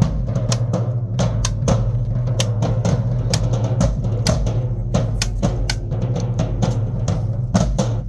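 Marching band drumline playing a cadence: snare drums, bass drums and cymbals striking in a fast, steady rhythm.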